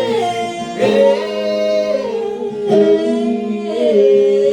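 A woman singing an old-time ballad in long, drawn-out notes that slide between pitches, over acoustic guitar and a bluegrass band.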